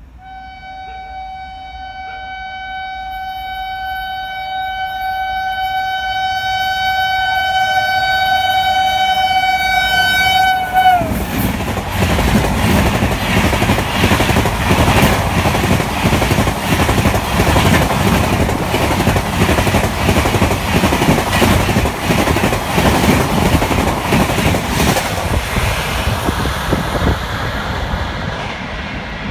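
WAP7 electric locomotive sounding one long air-horn blast of about eleven seconds as it approaches at high speed, growing louder and dropping in pitch as it passes. Then the Rajdhani Express coaches rush past with rapid wheel clatter on the rails, fading near the end.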